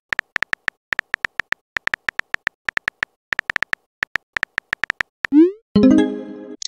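Chat-app keyboard sound effects: a rapid, uneven run of short electronic beeps, one per typed letter. About five seconds in, a rising swoop and a bright chime mark the message being sent.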